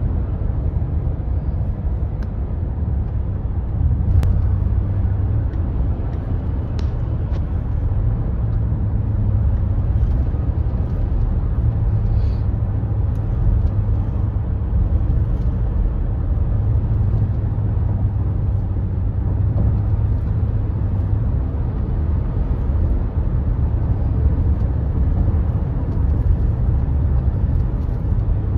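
Steady low tyre and road rumble inside a car's cabin as it drives at highway speed over an interstate bridge deck, with a few faint clicks about four and seven seconds in.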